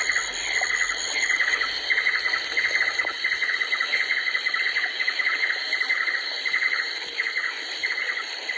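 Rainforest ambience: a dense chorus of insects trilling steadily, with a high pulsing trill repeating rapidly and a constant high buzz above it.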